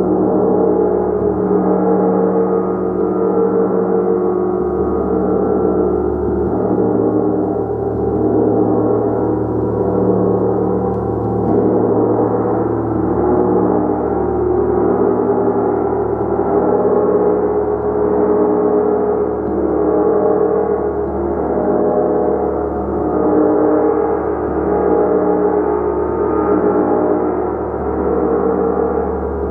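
Large hanging gong played continuously. It makes a dense, sustained wash of many overlapping tones that swells and ebbs every couple of seconds, with no single sharp strike standing out.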